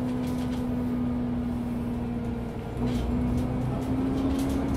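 2022 Isuzu Citiport 18 articulated city bus running, heard from on board: a steady diesel drive-train drone with a low rumble. A bit over halfway the drone briefly drops away, then comes back slightly higher with a deeper rumble, with a couple of faint clicks or rattles.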